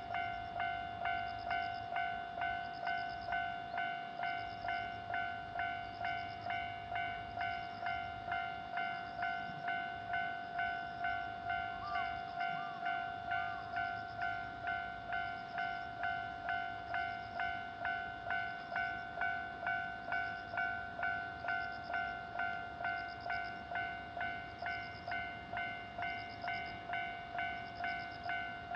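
Japanese railroad crossing warning bell ringing its steady "kan-kan" alarm, about two even strikes a second, each fading quickly. The signal that a train is approaching and the barrier is down.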